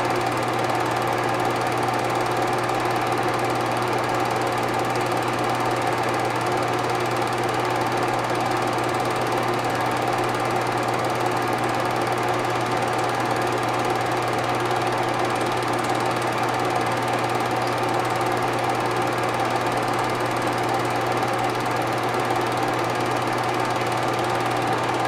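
Film projector running: a steady mechanical whir and rapid clatter over a constant hum.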